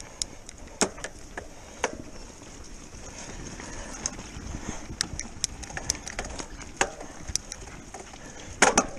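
Electric mountain bike rolling down a loose stony track: tyres crunching over gravel and rocks, with many sharp clicks and knocks from stones and the bike's parts, loudest in a cluster of knocks near the end.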